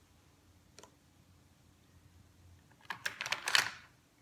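A single soft click, then a quick, loud flurry of clicking and crackling about three seconds in, from small things being handled on the work table.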